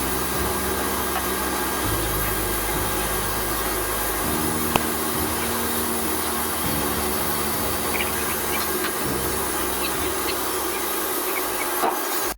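Steady aircraft engine noise: an even roar and hiss with a low hum underneath that shifts in pitch every couple of seconds.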